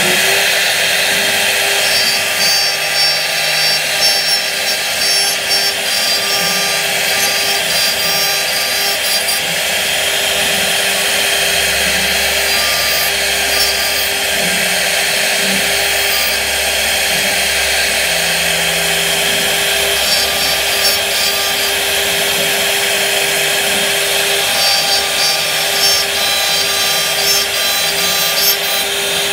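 CNC wood router spindle carving a relief with a small tapered bit: a steady whine from the spindle over the continuous rasping hiss of the cutter working through the wood.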